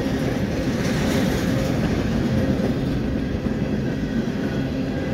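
Empty steel coil cars of a freight train rolling past, their wheels giving a steady rumble on the rails.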